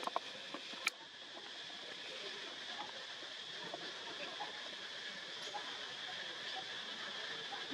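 Steady outdoor background hiss with a constant high-pitched band, and one sharp click about a second in.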